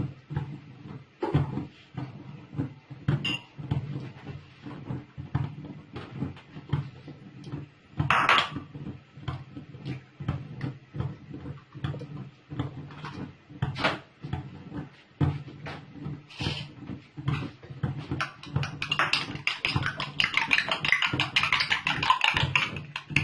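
Kitchen handling noises: scattered knocks and clicks of utensils and containers over a steady low hum, turning into a dense, rapid clatter of metal on a dish for the last few seconds.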